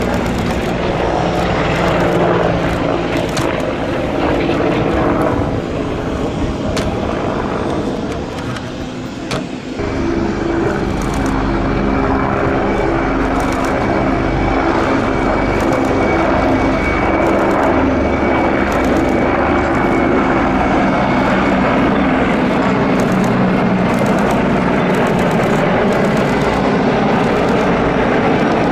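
Several Mi-24 attack helicopters flying past, their rotors and turbine engines giving a loud, steady drone. The sound dips briefly about eight seconds in and swells again at ten seconds, with a thin high turbine whine for several seconds after that.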